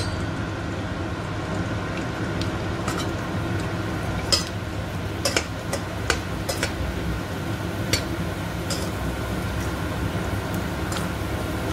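Kerupuk crackers sizzling in hot oil in a stainless steel pot, with a metal slotted spatula stirring them and clicking sharply against the pot a handful of times from about four seconds in. A steady cooker-hood fan hum runs underneath.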